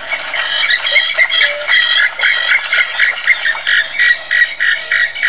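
Purple swamphen calling: a rapid series of loud, harsh notes repeating about three or four times a second.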